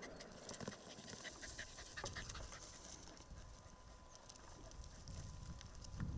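Hunting dog panting, with scattered light clicks and crackles.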